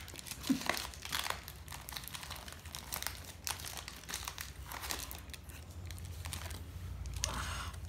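A small cardboard box being pried open and the plastic wrapping inside it handled: irregular rustling, crinkling and crackling.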